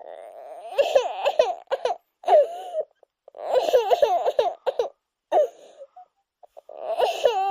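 A baby crying in three bursts of broken, wavering wails with short pauses between them.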